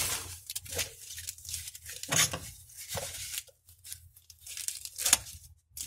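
Foam and plastic packaging rustling and crinkling as it is handled and cut open with scissors. A few sharper snips or rips stand out among the softer rustles.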